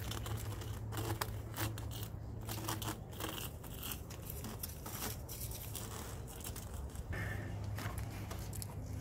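Corrugated plastic conduit and trailer wiring being handled and fed along a drawbar: irregular rustling, scraping and small clicks, over a steady low hum.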